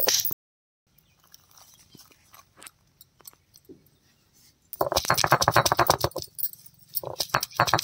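Stone roller grinding and crushing on a flat stone grinding slab (ammi kal): a quiet stretch of faint clicks, then from about five seconds in, loud rapid grinding strokes with a short pause in between, crushing garlic cloves.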